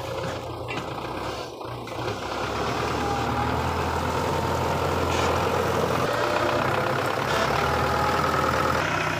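Belarus tractor's diesel engine running steadily under load as its front loader pushes into a sugarcane trolley, growing louder about two and a half seconds in.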